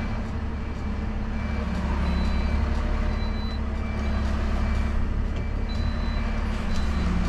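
Dennis Elite+ refuse truck reversing, its diesel engine running with a steady low rumble heard from the cab and its reversing alarm beeping repeatedly, about once a second.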